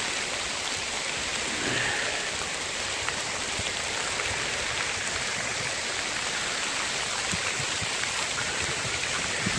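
Sleet and small hail falling on a car and the ground: a steady hiss with faint scattered ticks of pellets.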